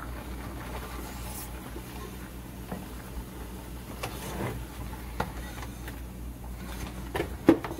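A wooden spoon turning chicken pieces in a pot, with a few scattered knocks and scrapes against the pot, the loudest near the end. A steady low hum runs underneath.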